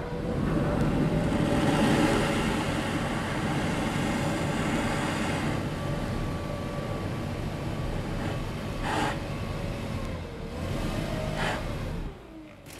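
Gas-powered leaf blower running, heard from inside the bus as it is played along the door seam to hunt for an air leak. Its engine pitch wavers up and down, then falls away and the noise drops sharply near the end.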